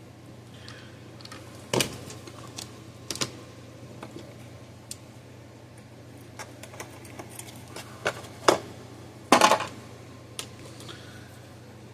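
Irregular clicks and light clatter of small parts and tools handled on a workbench, with the loudest knocks about nine and a half seconds in.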